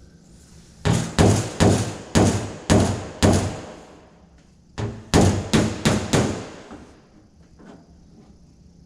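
Body hammer striking the sheet steel of a car door being straightened, each blow ringing briefly. Two runs of about five or six blows, a little over two a second, with a short pause between them about four seconds in.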